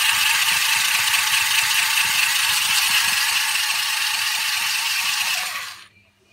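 Remote-control jumping toy car's small electric drive motors and plastic gears whirring steadily with a rattle as it drives over a hard floor, cutting off suddenly near the end.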